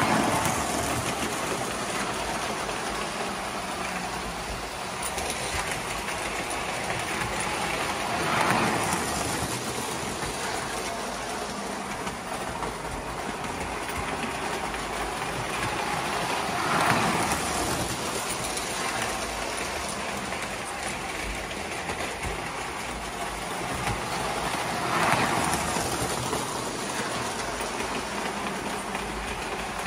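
Lionel toy steam locomotive and train running on three-rail track: a steady rattle of wheels and motor that swells louder briefly about every eight seconds as the train comes round the loop close by.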